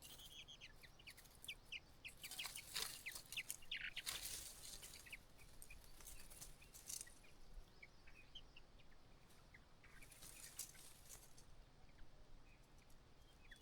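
White-browed laughingthrush calling faintly in a string of short high chirps, with two louder harsh, rasping stretches about two and a half and ten seconds in.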